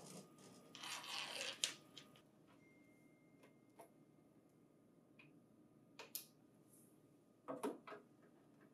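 Faint handling noises of a printer finisher cable being routed and pressed into plastic cable clamps: a short rustle about a second in ending in a click, then scattered light clicks and taps.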